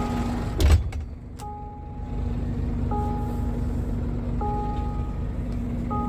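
Inside a Scania G450 truck cab: a short electronic warning chime repeats about every second and a half over a steady low hum. A single sharp knock comes about a second in.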